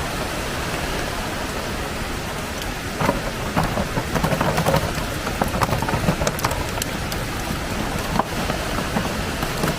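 Steady rushing of a waterfall's falling water. From about three seconds in to near the end, irregular sharp clicks and knocks sound over it.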